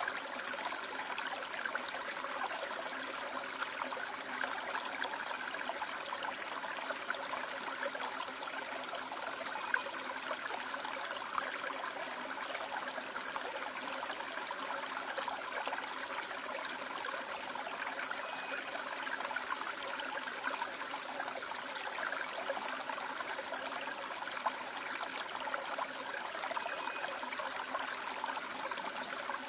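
Valley stream water flowing steadily over rocks, an even rushing sound that does not change.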